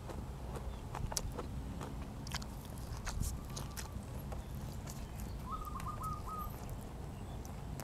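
Eating blanched blood cockles: chewing with scattered sharp clicks. About two-thirds through, a bird calls a quick run of about five short notes.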